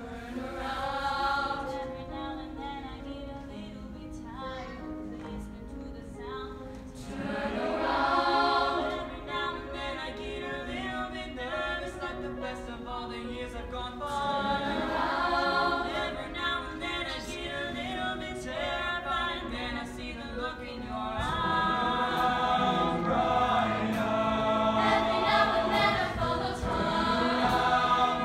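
Mixed-voice show choir singing in harmony, swelling louder about two-thirds of the way through.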